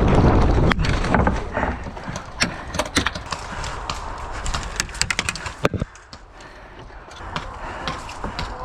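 Player moving with footsteps and gear rustling, while scattered sharp cracks of airsoft gunfire sound throughout, with a quick run of shots about five seconds in.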